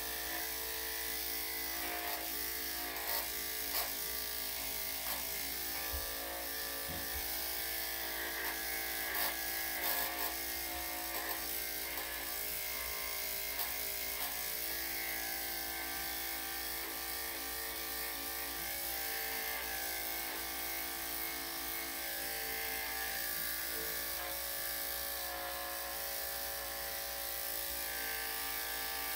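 Electric dog grooming clippers with a #7 blade running with a steady buzz as they shave a dog's coat, with a few light clicks in the first half.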